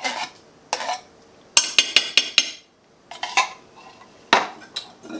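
Metal spoon scraping and clinking against a tin can while condensed soup is spooned out, in scattered strokes with a quick run of taps about two seconds in.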